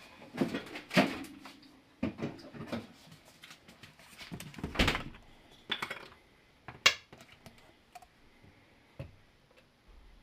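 Countertop handling sounds: a string of knocks, clicks and clatter as a plastic milk bottle is set down and opened and plastic measuring spoons are picked up among the utensils. There is a sharp click about seven seconds in, and it goes quieter near the end as the milk is poured into the spoon.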